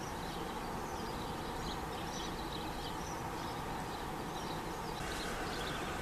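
Faint outdoor garden ambience: a steady background hiss with scattered faint, short high chirps.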